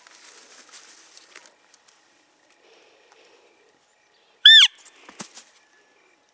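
A short, high, loud elk mew about four and a half seconds in: a single call that rises and falls in pitch and trails downward, followed by a couple of fainter, lower falling chirps. Before it, leaves and brush rustle faintly for the first second and a half.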